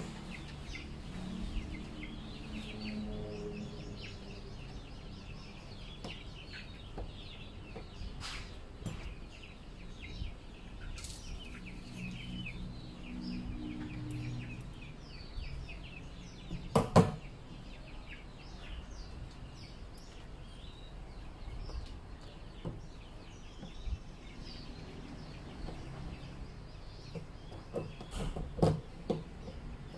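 Chickens clucking and small birds chirping throughout, with a sharp knock on the plastic drum about halfway through and a few more knocks near the end.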